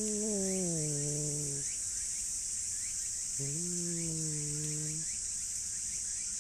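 Stray tabby cat giving two long, low threat growls, the first trailing off about a second and a half in and the second from about three and a half to five seconds in: a warning at a rival cat close by. Steady high-pitched insect buzz throughout.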